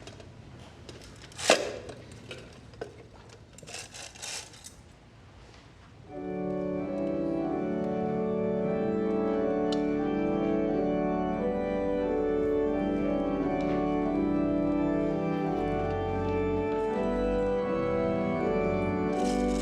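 A few soft knocks in a quiet room, one sharper than the rest. From about six seconds in, an organ plays slow, sustained chords.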